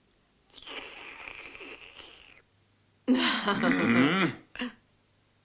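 A cartoon duckling's voice: a long breathy exhale lasting about two seconds, then, after a short pause, a louder wavering laugh-like vocalisation of about a second.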